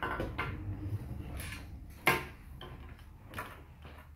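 Plastic Lego bricks clicking and knocking as they are handled and pressed together, a few separate clicks with the loudest about two seconds in.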